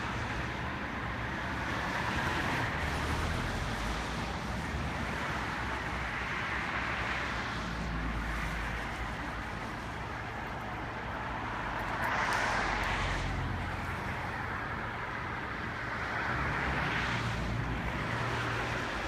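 Steady outdoor rushing noise with a low rumble beneath, swelling for a second or two about four times.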